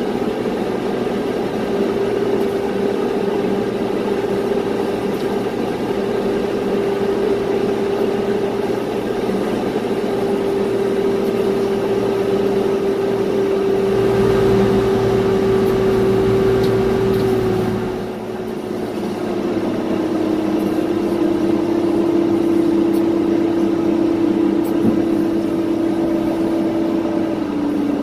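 Aircraft pushback heard from the nose gear: a tug's engine and the Boeing 787-9 run together as a steady mechanical noise. A whine in it sinks slowly in pitch, and the low rumble swells, then drops back about two-thirds of the way through.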